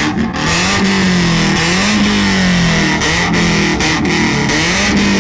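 A BMW E30's engine being revved over and over, its pitch rising and falling about every second or so.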